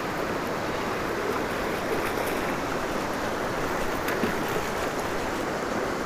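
Shallow mountain river rushing steadily over rocks.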